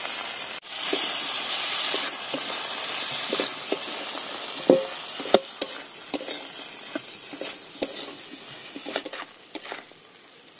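Chopped tomato sizzling in hot oil and spice paste in a metal kadai, with a metal spatula scraping and clinking against the pan as it is stirred. The sizzle is loudest at first and dies down toward the end, with the sharpest clinks about halfway through.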